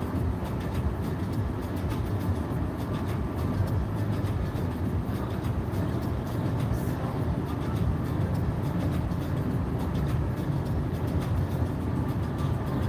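Steady road and engine rumble heard inside a moving car's cabin, with no breaks or changes.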